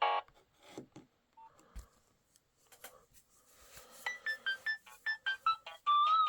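Nokia 6030 mobile phone playing its built-in ringtones through its small speaker. One tune cuts off at the start and a few faint clicks follow; about four seconds in, the next ringtone begins as a quick run of short, bright notes that grows louder near the end.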